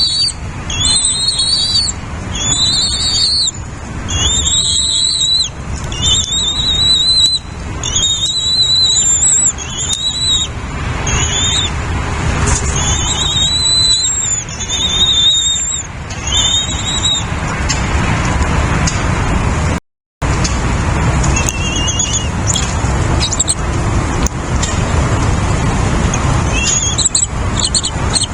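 Nestling birds begging: high, slightly rising squealing calls repeated one after another for about seventeen seconds, then only a few more after a short dropout. A steady low background noise runs underneath.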